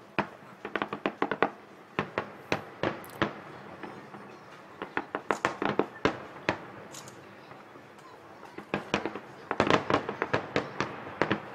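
Aerial firework shells bursting in rapid volleys of sharp bangs, several clusters with short lulls between them, the densest run coming near the end.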